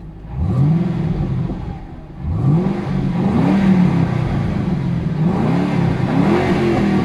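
2005 Ford Mustang GT's 4.6-litre V8, warm, being revved while parked and heard from inside the cabin: one rev about half a second in that dies back, then a string of throttle blips from about two seconds in, rising and falling again and again.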